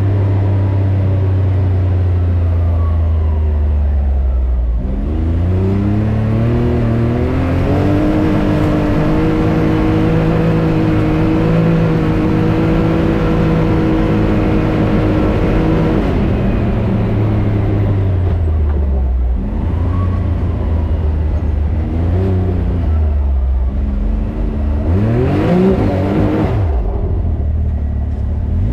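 Can-Am Maverick X3 Turbo RR's turbocharged three-cylinder engine under way. The revs climb about five seconds in and hold steady for several seconds, drop back around sixteen seconds, then rise and fall in shorter pulls.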